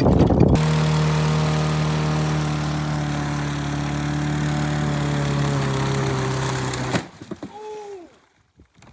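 Small single-cylinder engine of a Toro push lawn mower running at a steady speed after being soaked in water, then cutting off suddenly about seven seconds in.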